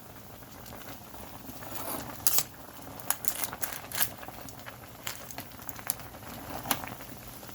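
Large pot of seafood boil bubbling at a steady boil, with a few sharp clicks and taps scattered through.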